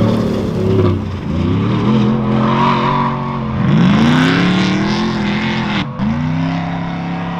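Prerunner off-road truck's engine revving up and down again and again as the truck slides around in loose dirt, with a sharp break about six seconds in.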